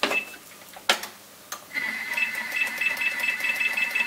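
A few sharp clicks as the Thermomix is handled, then, about two seconds in, its motor starts with a steady high whine and a fast ticking, stirring the milk and chocolate pudding mixture as it heats back to the boil.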